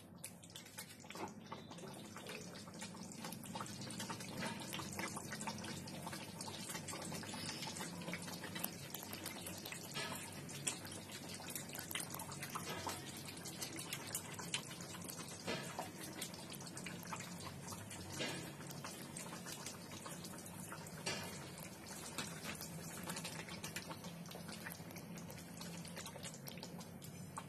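Faint bubbling of a thick milk-and-masala gravy simmering in a non-stick pan on a gas flame: a stream of small irregular pops and ticks over a low steady hum.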